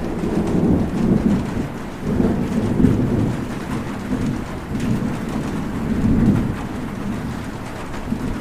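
Rolling thunder rumbling in several low swells over steady rainfall.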